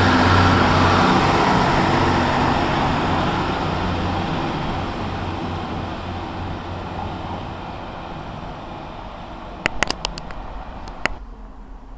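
Northern Rail Class 150 diesel multiple unit running away along the line, its engine hum and wheel rumble fading steadily as it recedes. A few sharp clicks sound near the end.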